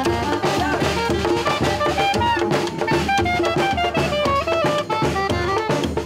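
Street brass band playing a lively tune: a soprano saxophone and horns carry a stepping melody over a steady drum beat.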